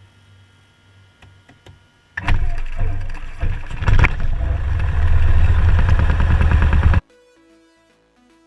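Cessna 172's piston engine starting: about two seconds in it cranks and catches, running loud and rough, then cuts off suddenly about seven seconds in, leaving faint music.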